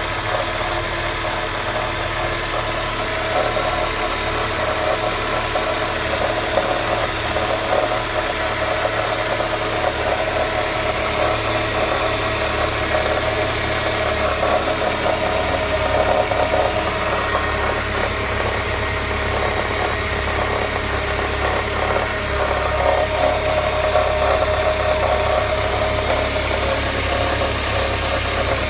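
Mercedes-Benz CLK 200's four-cylinder petrol engine running steadily just after a cold start, carrying an unusual noise that the owner calls strange.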